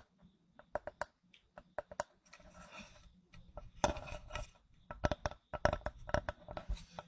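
Irregular light taps, clicks and knocks on a small wooden cutting board being handled, with a brief scratchy rub partway through and the taps coming thicker and louder in the second half.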